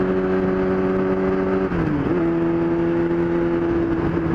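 Yamaha R6's inline-four engine running steadily under way. About two seconds in the revs drop sharply and settle a little lower, as it shifts up a gear.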